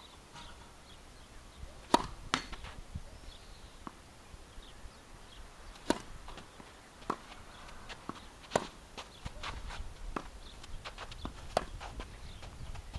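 Tennis ball struck by rackets and bouncing on the court during a serve and rally: sharp, separate pops a second or a few seconds apart, the loudest about two seconds in.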